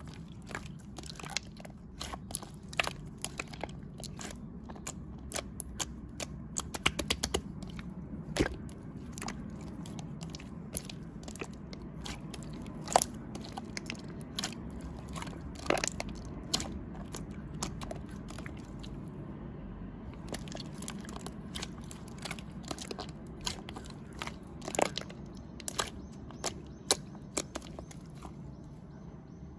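Crunchy food being chewed: many irregular sharp crunches and crackles over a steady low hum.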